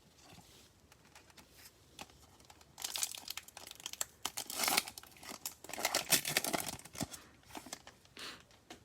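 Plastic trading-card pack wrapper being torn open and crinkled by hand, in crackly bursts starting about three seconds in and loudest in the middle.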